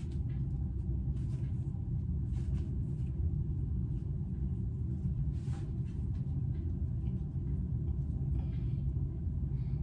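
Steady low rumble, with a few faint rustles and soft taps as a fabric headband is tied on over the hair.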